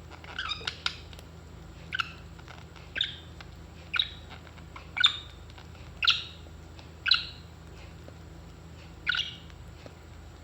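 A pet parrot giving short, sharp chirping calls, about one a second, with a brief flurry at the start and a pause near the end. A low steady hum runs underneath.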